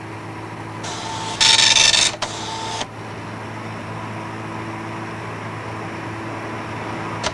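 Steady drone of a light aircraft heard inside the cabin, a low even hum, with a louder hissing stretch lasting about a second and a half, starting about one and a half seconds in.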